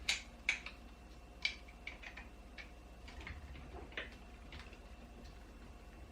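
Faint, irregular small clicks and taps of a flat-blade screwdriver working a stripped screw out through a slot cut into its head, with the sharpest click at the very start.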